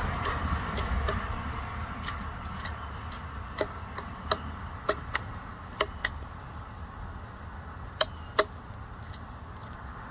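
Pileated woodpecker pecking at wood: single sharp knocks at uneven intervals, sometimes in quick pairs, the kind of foraging or excavating strikes rather than a rapid drumming roll, over a steady low background rumble.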